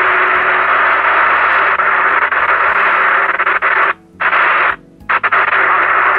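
President Lincoln CB transceiver's receiver giving out loud, steady static from strong urban interference picked up on a rooftop base antenna. The noise cuts out twice briefly, about four and five seconds in.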